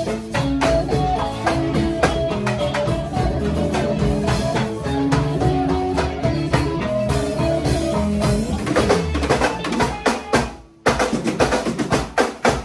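A band rehearsing live: drum kit with bass and a pitched melody playing together, then from about nine seconds in mostly the drums alone, stopping for a moment near the end before the drum strokes start again.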